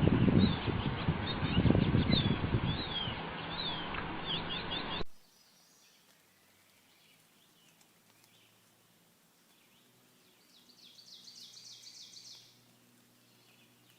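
Small birds chirping rapidly in quick rising and falling notes over a loud low rumble, cut off abruptly about five seconds in. Then it is quiet, with faint high calls and, near the end, a rapid high trill lasting about two seconds.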